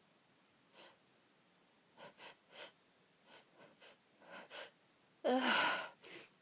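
Sneeze build-up in an allergy fit: a run of short, sharp gasping breaths in, coming closer together, then a loud voiced burst about five seconds in and a brief breath after it.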